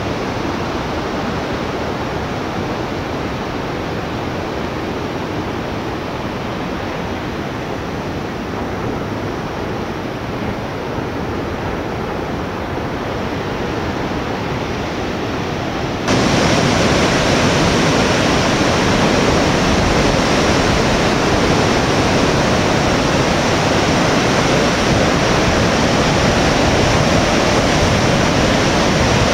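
Steady rush of ocean surf and wind on a rocky coast, with no separate wave crashes standing out. About halfway through it cuts suddenly to a louder, brighter rush.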